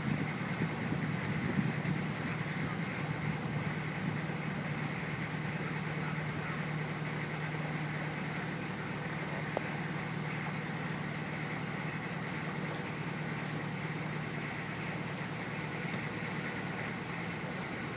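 Boat engine running steadily under way: a constant low hum with a fainter high whine.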